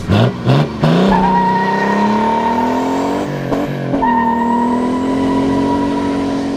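Mercedes 190D fitted with a 3.0 24-valve Mercedes diesel and an HX35 turbo, accelerating hard as it drives away. The engine note climbs steadily through one gear, dips at a gear change about three and a half seconds in, then climbs again.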